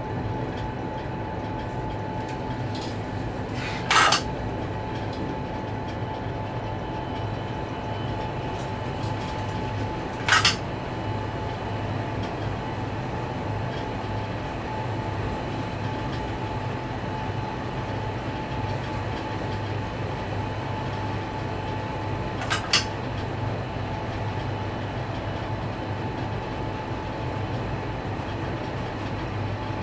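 Steady running noise inside a diesel locomotive's cab on the move, a low drone with a thin steady tone above it. Three short, sharp metallic clanks stand out, about 4 seconds in, about 10 seconds in and a doubled one about 22 seconds in.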